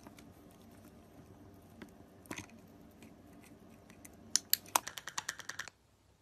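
Cockatiel's beak clicking and tapping on a small plastic seed-dispenser toy and loose seeds. There are a few scattered clicks, then a quick run of louder clicks about four seconds in that stops suddenly near the end.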